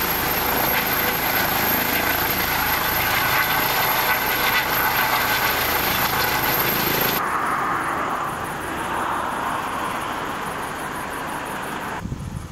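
Trauma helicopter's turbine engines and rotor running loud and steady as it lifts off. About seven seconds in the high hiss drops away suddenly, and the sound slowly fades.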